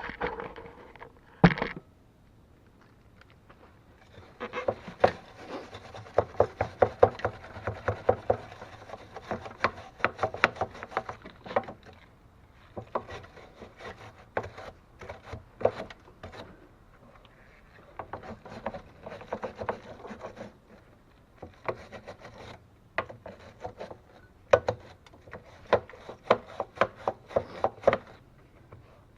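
Slag being scraped and brushed by hand off fresh welds on a snow thrower's steel auger blade, in bursts of rapid strokes lasting a few seconds each with short pauses between. A single knock sounds about a second and a half in.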